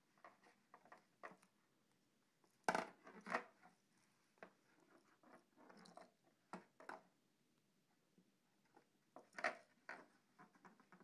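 A cat scrabbling and batting a ball around inside a plastic Halloween pumpkin pail: faint, irregular taps, knocks and scratches, with the sharpest knocks about three seconds in and again about nine seconds in.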